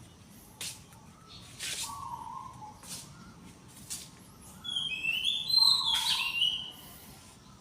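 Wild birds calling: a lower call comes twice, short sharp chirps are scattered throughout, and a louder run of higher notes, stepping up and down, fills the second half.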